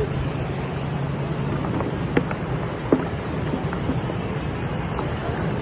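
Steady rush of churning water at the foot of a concrete wall. Two short sharp clicks stand out about two and three seconds in.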